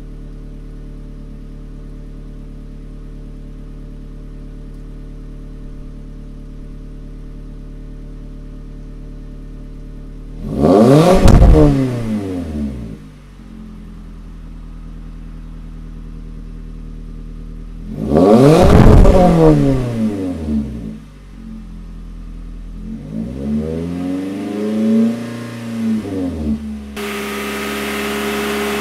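A 2018 Toyota C-HR's 2.0-litre four-cylinder idles through an HKS Legamax cat-back exhaust and is revved sharply twice, about ten seconds in and again about eight seconds later. Each rev climbs quickly and drops back to idle, then a few smaller blips follow. Near the end the idle abruptly sounds brighter.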